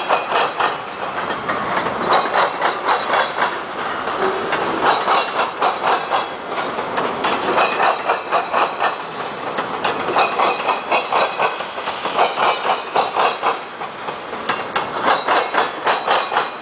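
Freight cars rolling past close by, steel wheels clicking over the rail joints in rhythmic clusters every couple of seconds as each car's trucks pass, over a steady rumble.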